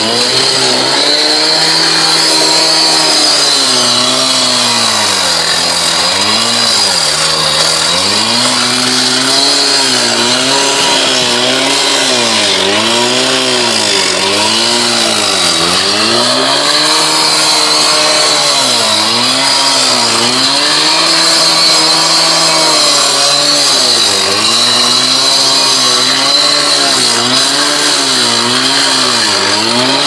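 Handheld cut-off saw cutting a concrete sidewalk. Its engine pitch dips and recovers every second or two as the blade bites and eases, over a steady high-pitched whine.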